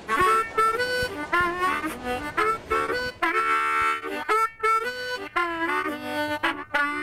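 Harmonica played in short phrases of chords and single notes, with bent notes that swoop in pitch and brief breaks between phrases.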